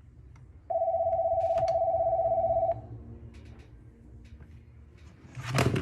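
A steady, warbling electronic tone lasts about two seconds, starting about a second in. Near the end comes a short, loud burst of noise.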